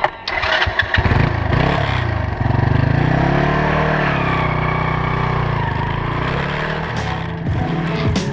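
Motorcycle engine running and revving as the bike pulls away: a few knocks and clatter in the first second, then the engine note rises in pitch about two and a half seconds in, falls back, and settles into a steady run.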